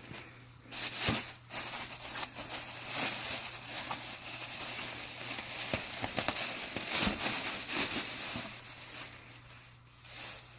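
A cardboard shipping box being opened and unpacked: packing material rustles and crinkles on and off, with a few knocks as the box and its contents are handled.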